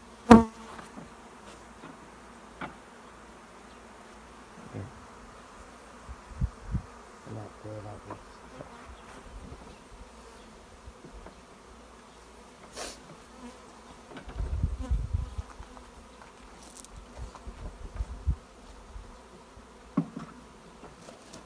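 Honey bees from a freshly installed package buzzing around an open top bar hive, with a few sharp knocks of wooden top bars being handled, the loudest just after the start. A low rumble comes in for a couple of seconds past the middle.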